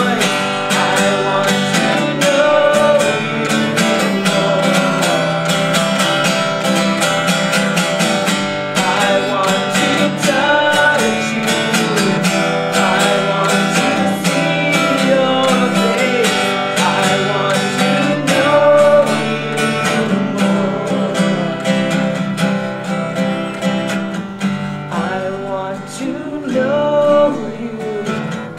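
Live music: acoustic guitar strumming steadily, with a melody line over it.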